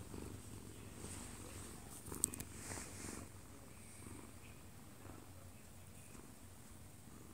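Munchkin cat purring close up: a soft, steady low rumble while its chin is scratched. A single sharp click sounds about two seconds in.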